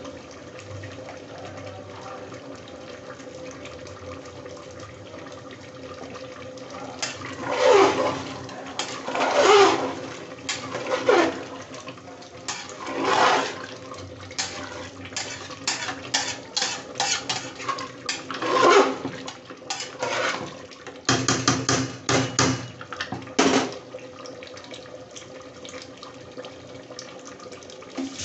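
Ladle stirring and scraping inside an aluminium pressure cooker of simmering mutton curry, a run of loud scrapes and quick knocks in the middle, over a steady hiss from the cooking pot.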